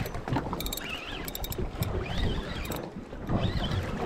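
Wind buffeting the microphone and choppy water slapping a small boat's hull, with scattered clusters of short, sharp clicks.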